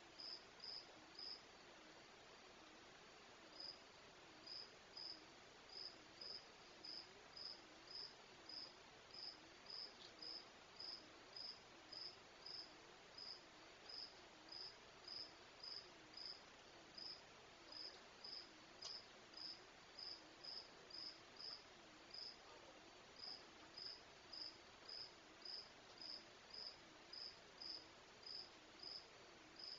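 A cricket chirping, a short high chirp about three times every two seconds, faint and regular, with a pause near the start and another partway through. A faint low wavering hum runs beneath.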